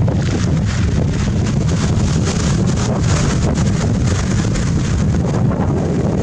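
Sea surf breaking and washing over a pebble beach, with a steady rumble of wind buffeting the microphone.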